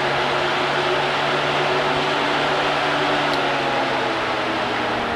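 Old electric A/C condenser fan from a 2009–2018 Ram 1500, a unit judged in need of replacement, running on direct 12-volt power from test leads: a steady rush of air over an electric motor hum. The hum stops right at the end as the power comes off.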